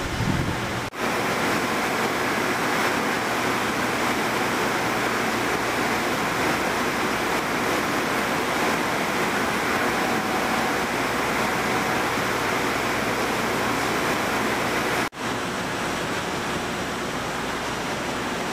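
A DMC Unisand 2000 wide-belt sander running with a cabinet door panel on its feed belt: a loud, steady rushing noise among other woodshop machinery. The sound drops out briefly about a second in and again near the end.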